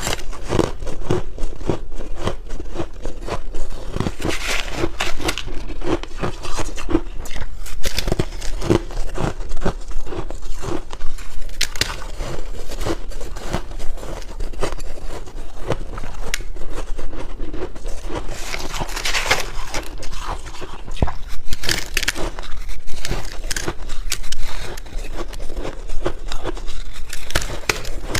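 Close-miked biting and chewing of crunchy white ice bits and freezer frost: a dense, continuous run of crackling crunches, with a few louder bites now and then.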